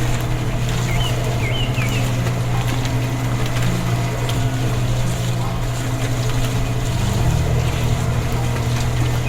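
Steady low hum of a small motor running at an even pace, with a few faint bird chirps about a second in.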